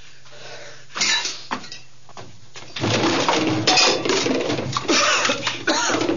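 Objects being knocked off a cupboard and clattering to the floor: a couple of knocks in the first two seconds, then a continuous clatter of crockery, bowls and small items falling from about three seconds in.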